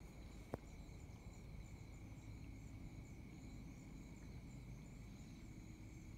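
Faint night insects, crickets or similar, trilling and chirping steadily over a low rumble, with a single sharp click about half a second in.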